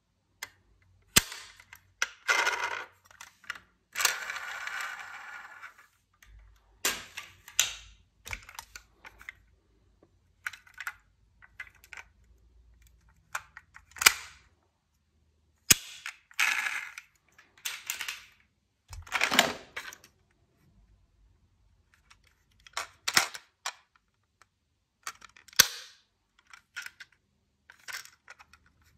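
Die-cast toy cars clicking and clattering against each other and the box as they are handled and set down: irregular sharp clicks and short rattles, with longer scraping rattles about four seconds in and near nineteen seconds.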